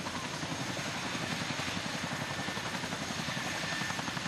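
Chinook tandem-rotor helicopter running on the ground: a rapid, even rotor beat under a steady high turbine whine.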